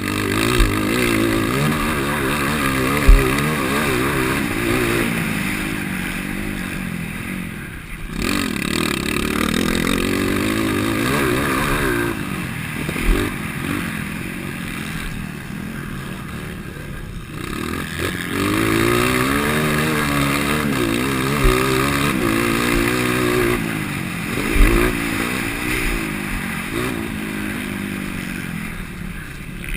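IMS 230 motocross bike's single-cylinder four-stroke engine, fitted with an aftermarket Dore header and silencer, revving up and falling back again and again as the rider accelerates and shuts off around the track. A few sharp knocks come through as well, the loudest about three seconds in.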